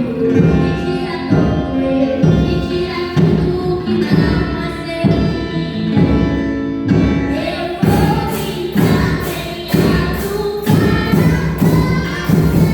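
Church percussion band playing a hymn: drums keep a steady marching pulse about once a second under voices singing the melody. About eight seconds in, a faster high metallic beat joins.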